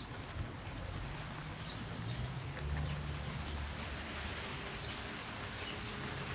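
Steady wind and rain noise with a low rumble of wind on the microphone, and a few short, high bird chirps scattered through it.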